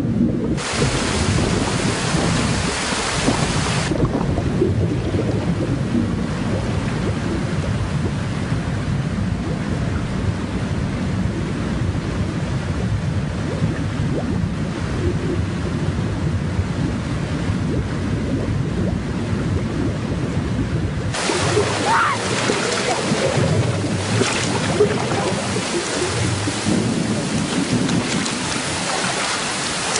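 Strong wind storm, a heavy, steady rumbling rush of noise, with the hiss growing sharper briefly near the start and again for the last third.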